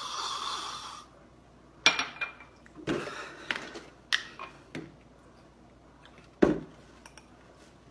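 A short noisy sip from a shot glass in the first second. Then a run of sharp clinks and knocks from glassware and a bottle cap being handled and set down on a stone countertop. A louder, duller knock comes about six and a half seconds in.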